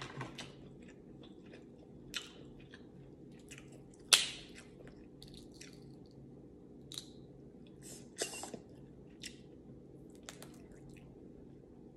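Close-up eating sounds: chewing and wet mouth smacks, with short sharp crackles as boiled shrimp shells are peeled by hand. The loudest is a single snap about four seconds in.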